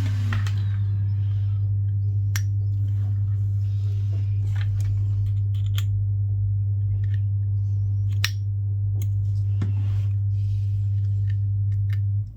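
Hot air rework station blowing steadily as a low hum while it heats the phone's back glass to soften the adhesive, with scattered sharp clicks of tools against the phone. The hum cuts off near the end.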